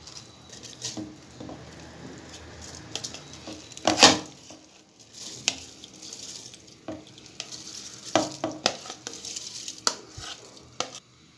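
Soaked rice being scraped from a bowl into a pot of boiling water, with a steady bubbling hiss and scattered knocks of the bowl and spoon on the steel pot. The loudest knock comes about four seconds in.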